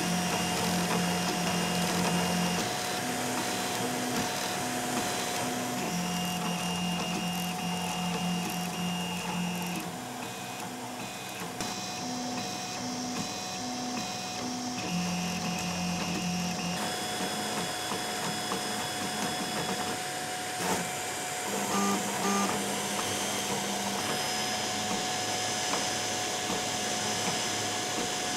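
Home-built 3D printer printing: its stepper motors sing in steady pitched tones that start, stop and change pitch every second or few as the print head makes its moves, over a constant steady hum.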